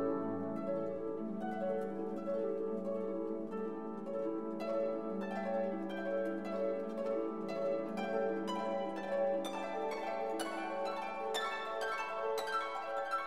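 Instrumental background music: quick plucked notes, growing busier after a few seconds, over steady held lower tones.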